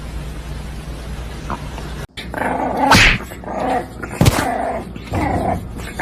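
A pet animal growling and giving short cries, starting after a brief break about two seconds in; before that only a low steady hum.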